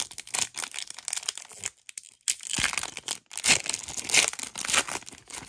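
Pokémon trading cards being handled and sorted: a dense run of crinkling and rustling with quick clicks, busiest in the second half.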